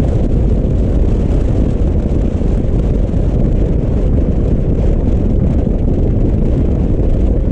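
Steady, heavy wind rumble on the microphone while riding a Honda Navi scooter at speed, a low roar with no clear engine note showing through.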